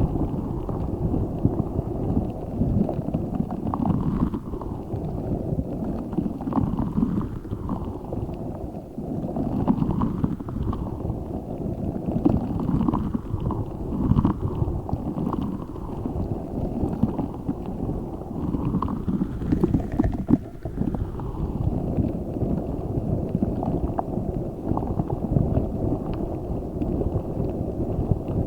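A giant spiky Orbeez-filled squishy ball squeezed and kneaded by hand close to the microphone: a continuous run of dull, low squishing and rubbing.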